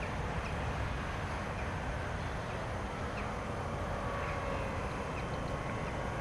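Steady wind rush and outdoor ambience on the microphone, with a faint distant whine drifting slowly in pitch from the electric motor of a 3.5 m RC Blizzard glider in flight.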